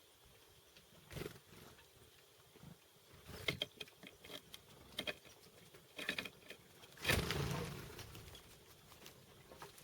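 Chickadees feeding at a winter feeder: scattered small pecking taps and rustles, with a louder rustling burst about seven seconds in that fades over about a second.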